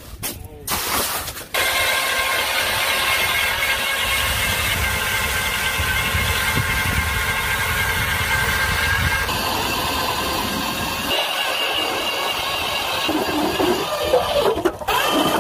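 Battery-powered ION electric ice auger drilling through river ice: a steady motor whine with a low rumble under it, shifting in tone a couple of times as the bit cuts down.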